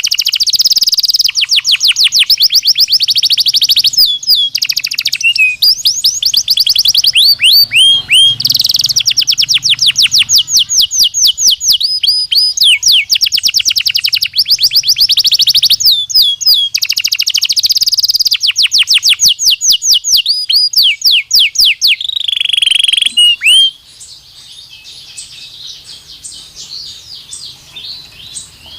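Belgian canary singing in long phrases of rapid trills, each made of fast repeated notes sweeping down in pitch, with short breaks between phrases. A little before the end the song drops to a much fainter level and carries on softly.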